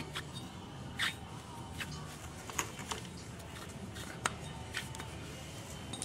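Worn wheel bearing in a removed 2004 Nissan Murano hub assembly, turned by hand: a few faint, uneven clicks as it catches, the sign of a failed bearing, which the owner calls pretty bad.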